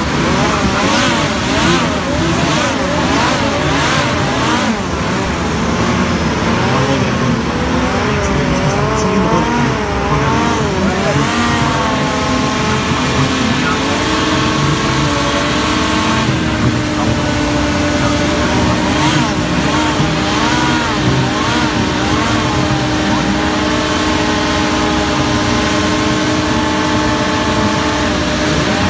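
Several racing hovercraft engines running together at the start line, their pitch rising and falling repeatedly for the first twelve seconds or so, then holding steady.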